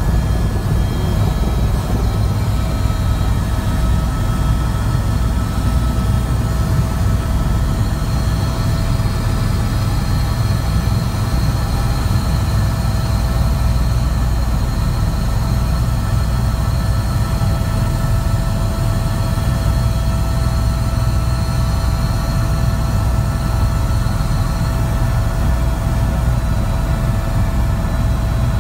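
Helicopter heard from inside the cabin in flight: a steady low rotor and engine drone with a constant whine held over it.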